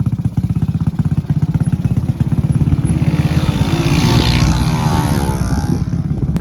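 Motorcycle engine running under way, a fast even low pulse, heard from on the moving bike. A rushing noise swells and fades between about three and six seconds in.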